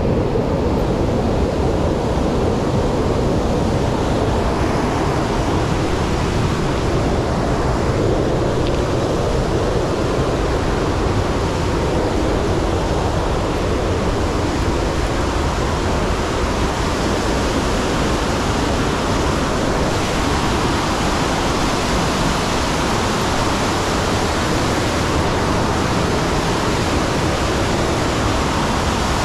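Loud, steady rush of running water.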